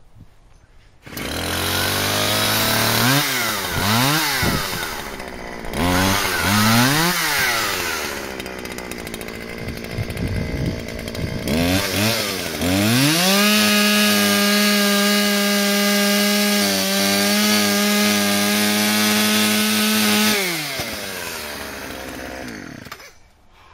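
Two-stroke chainsaw comes in about a second in and is revved up and down several times. It then climbs to high revs, holds steady for about eight seconds, and the revs fall away near the end.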